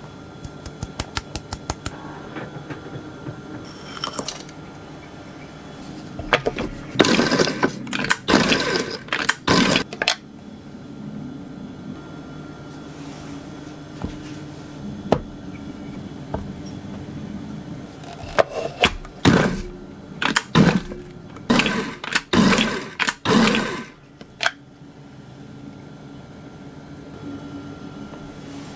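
Food processor run in short pulses, its blade churning a dry mix of flour, cornstarch, cocoa powder and sugar. There are two runs of several pulses each, about seven seconds in and again around twenty seconds in. A quick series of clicks comes near the start.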